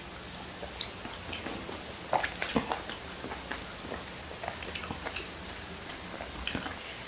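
Quiet eating sounds: chewing, and small clicks of a fork picking at a soft boiled salmon head in a bowl. A few louder clicks come about two seconds in.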